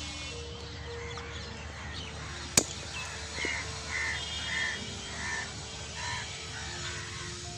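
A crow cawing repeatedly from about three seconds in, a call roughly every half second to second, over soft background music with held notes. A single sharp click about two and a half seconds in.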